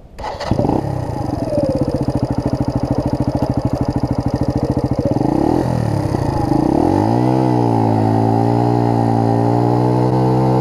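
Keeway 125 cc motorcycle engine idling with an even pulse, then revved up about six seconds in and held at high revs for a burnout in loose dirt.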